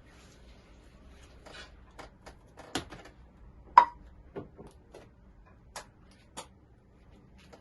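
Slime being squeezed and worked by hand, making scattered small clicks and pops at irregular intervals, the loudest about four seconds in.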